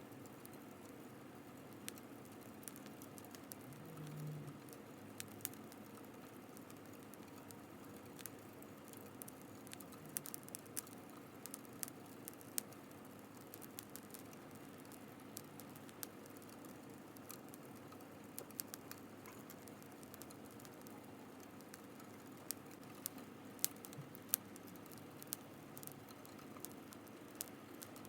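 Wood fire crackling: irregular sharp pops and snaps, some in quick clusters, over a faint steady hiss of burning.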